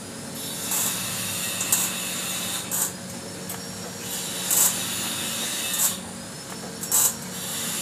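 TIG welding torch tack-welding a mounting bracket onto a stainless-steel motorcycle silencer: a steady machine hum with about six short hissing bursts of the arc.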